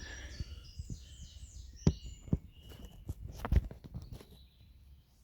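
Several dull thumps, the loudest about two seconds and three and a half seconds in, with birds chirping.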